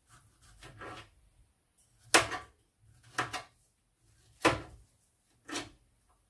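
Kitchen knife cutting strawberries on a plastic chopping board: four sharp knocks of the blade hitting the board, about a second apart, after softer cutting sounds at the start.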